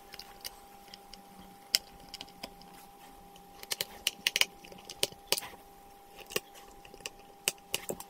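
Small screwdriver driving screws into the corners of a laptop's drive bay: scattered light clicks and ticks of metal on screw heads and plastic, coming in a quick cluster about four seconds in.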